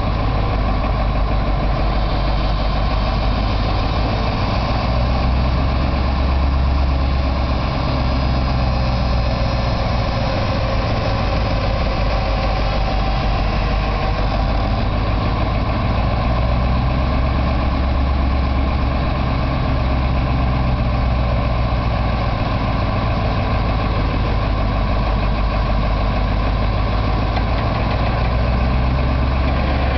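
Bucket truck's engine idling steadily while the boom is worked, its low rumble swelling slightly a few times.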